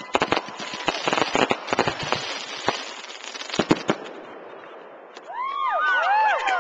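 Aerial fireworks going off: a dense run of crackles and sharp bangs for about four seconds, which then dies away. Near the end, several voices start cheering and whooping, their pitch rising and falling.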